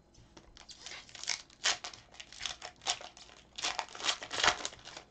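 Foil trading-card pack wrappers crinkling and rustling in irregular bursts as gloved hands handle a stack of sealed packs, loudest in the second half.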